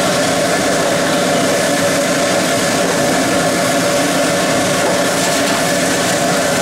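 Steady mechanical drone: an even, unbroken hum with noise over it, holding the same level throughout.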